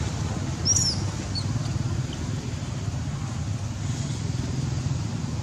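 Outdoor ambience of a steady, fluttering low rumble, with one short high squeak less than a second in.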